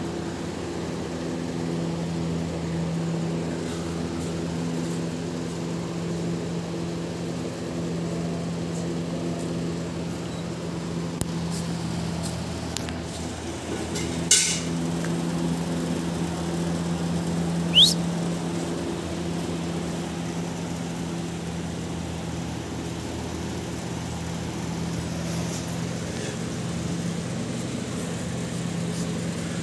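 A steady machine hum with an even low drone, broken by a sharp knock about fourteen seconds in and a short rising squeak a few seconds later.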